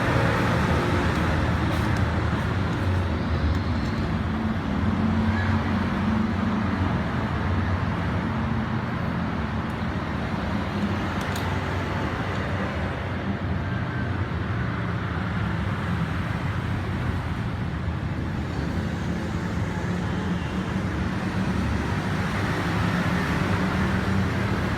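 Honda GX620 V-twin petrol engine on a generator set running steadily under test, a constant low engine hum with no breaks.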